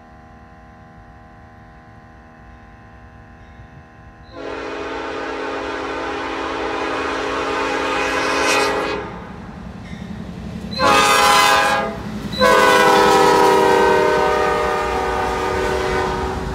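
Nathan P5 five-chime locomotive air horn sounding the grade-crossing signal: faint at first, then a loud long blast about four seconds in, a short blast, and a final long blast, with the rumble of the approaching diesel locomotives underneath.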